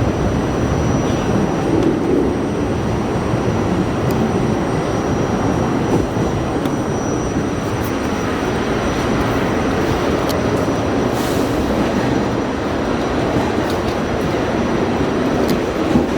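Inside a moving R68A New York City subway car: a steady, loud rumble of the wheels on the rails, with a few brief clicks from the track and a faint, steady high whine.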